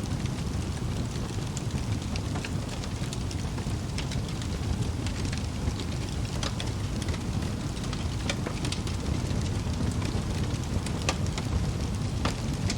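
Wood fire burning in a fireplace: a steady low rumble of flames with scattered crackles and a few sharper pops from the logs.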